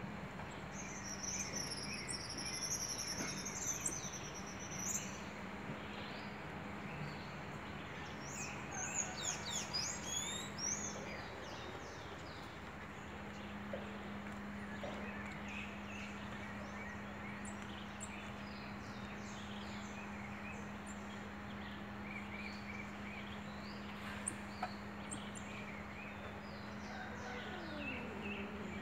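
Outdoor ambience with bursts of high-pitched chirps and whistles, busiest a second or so in and again around nine to eleven seconds in, with scattered chirps after. A steady low hum runs under them.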